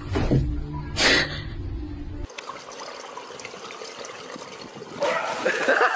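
Swimming-pool water lapping and splashing, with someone laughing from about five seconds in. Before it, in the first two seconds, a low hum with two sudden noises.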